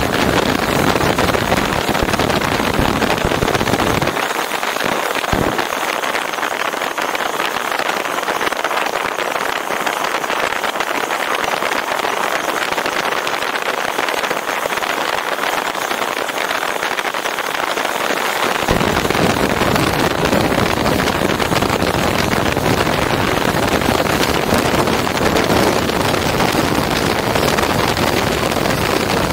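Steady rushing road and wind noise of a moving vehicle. The deep rumble drops away from about four seconds in and comes back about eighteen seconds in.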